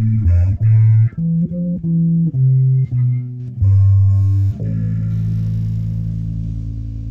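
Bass guitar played solo: a run of single low notes plucked one after another, then a low tone held steadily from about two-thirds of the way through.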